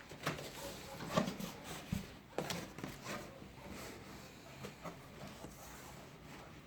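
Packaging being handled during unboxing: a series of irregular knocks, clicks and rustles, busiest in the first three seconds.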